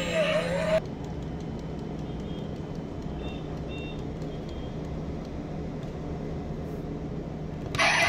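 Steady car engine running sound effect, with two short high beeps a little over three seconds in. Music cuts off just under a second in and comes back near the end.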